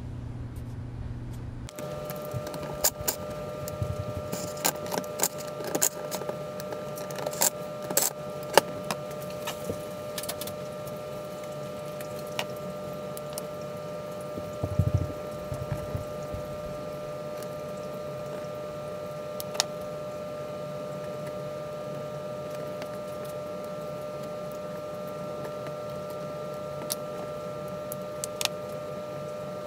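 Small metal parts clinking and tapping as a winch solenoid pack on its steel bracket is handled and worked on by hand, with nuts and washers knocking against the bracket and bench. The clinks come thick in the first half and thin out later, over a steady hum.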